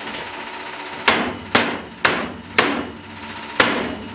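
Five hard knocks on a Litron Nano L pulsed Nd:YAG laser head as it is struck in a rough-handling test of its ruggedness. The first four come about half a second apart starting a second in, and the fifth follows after a gap of about a second. A steady electrical hum runs underneath.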